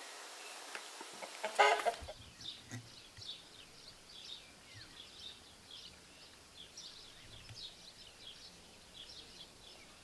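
Small birds chirping in quick, high notes, after a short loud call about one and a half seconds in.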